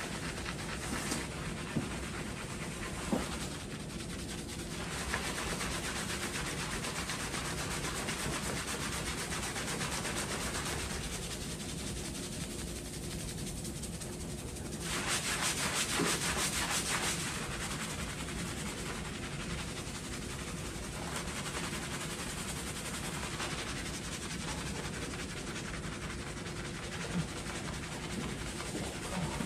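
Hands scrubbing a foamy, shampoo-lathered scalp: a continuous rustling, squishing rub of fast strokes, louder and brighter for about two seconds in the middle.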